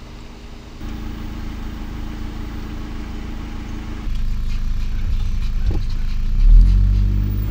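Car engine running with road noise, the sound changing abruptly about a second in and again about four seconds in. Near the end the low engine drone swells and rises in pitch.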